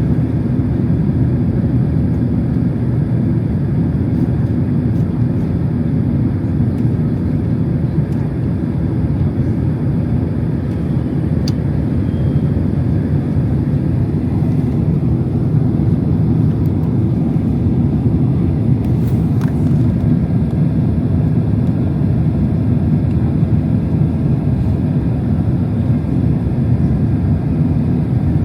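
Steady low roar inside the cabin of a Boeing 767-300 airliner in flight: air rushing past and the jet engines running. Faint cabin clicks come once about 11 seconds in and again about 19 seconds in.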